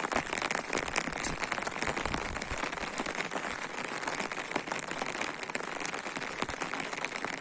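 Heavy rain pattering steadily, with many small drop ticks throughout.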